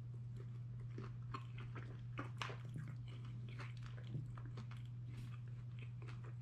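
Close-up mouth sounds of a person chewing a bite of cooked liver with lemon: irregular wet clicks and smacks, the sharpest about two and a half seconds in, over a steady low hum.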